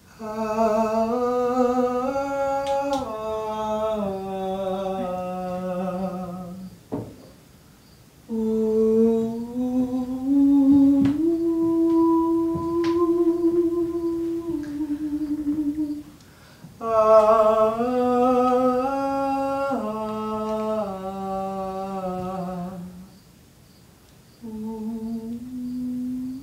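A single voice humming a slow wordless melody, holding long notes that step up and down between a few pitches, in four phrases with short pauses between them.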